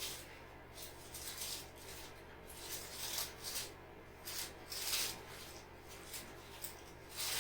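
Hands rubbing and rustling against skin and clothing in a series of brief, soft swishes.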